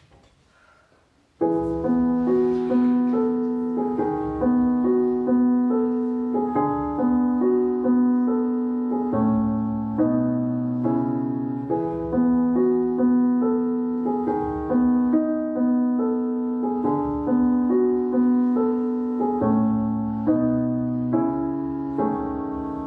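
Piano music starts suddenly about a second and a half in, after near silence: a repeating figure of struck notes over lower bass notes.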